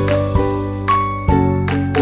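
Background music: a tinkling tune of sustained notes, a new note or chord struck about every half second.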